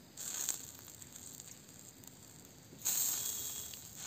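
Juices from a whole chicken roasting over a charcoal fire sizzling on the hot coals: a short hissing burst near the start and a longer one about three seconds in that fades away.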